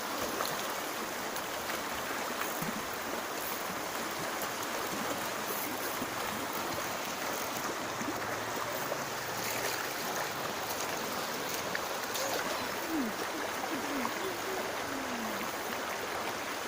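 River water flowing steadily, a continuous even rushing, with a few faint short chirps near the end.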